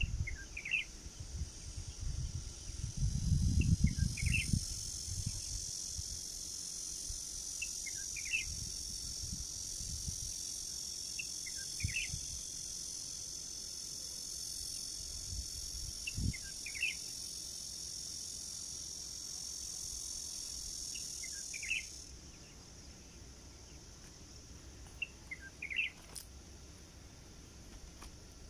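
A steady high-pitched insect buzz that cuts off suddenly about three quarters of the way through, with short bird chirps repeating every couple of seconds. A brief low rumble comes a few seconds in.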